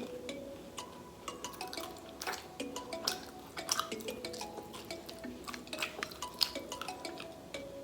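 Background music with a stepping melody, over crisp, irregular crunching clicks of chewing close to the microphone: crunchy mini tacos being eaten.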